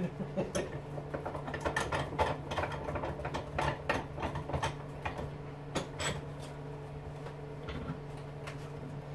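Clinks and knocks of small metal electric-motor parts and hand tools being handled on a workbench, coming quickly for about the first six seconds and then only now and then, over a steady low hum.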